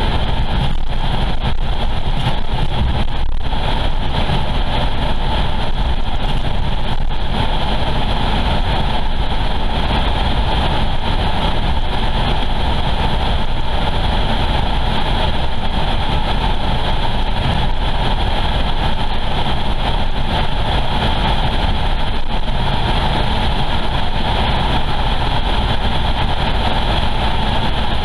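Car driving steadily along an open road: constant engine and tyre rumble, heaviest in the low end, with a hiss over it.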